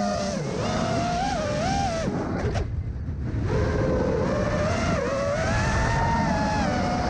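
FPV quadcopter's iFlight Xing 2206 1850 KV brushless motors and propellers whining, the pitch rising and falling with throttle. About two seconds in the whine drops away for a second or so, leaving a rush of air, then comes back.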